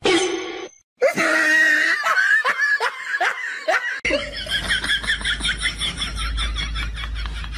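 People laughing: about a second in, a run of hearty laughter, then after a cut, quicker, higher-pitched giggling in rapid bursts over a low hum.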